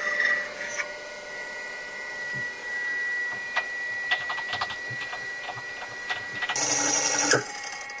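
Milling machine spindle whining steadily while a drill bit cuts pilot holes in an aluminium end cap, with scattered scraping clicks of the cut. A louder, harsher burst of cutting noise comes near the end.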